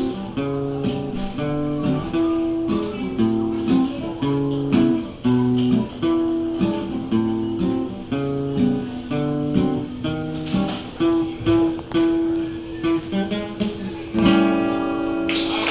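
Guitar playing the closing instrumental bars of a song after the last sung line. A final chord is struck near the end and left ringing, and clapping breaks in just as it rings.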